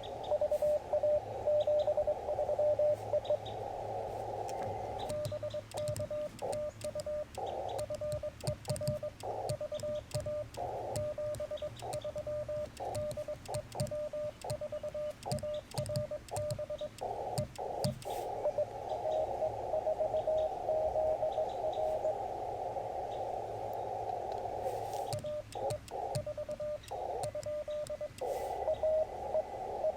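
Morse code from a Yaesu FT-891 transceiver: an incoming CW signal beeping in a narrow band of receiver hiss, twice giving way to the operator sending his reply, the sidetone beeps coming over the crisp clicks of a twin-paddle key.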